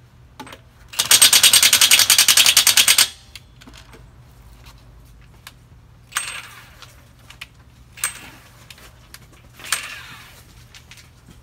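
Cordless impact wrench hammering a lug nut loose on a bus's steer wheel in one fast, even rattle of about two seconds. Three much shorter, quieter bursts follow a couple of seconds apart.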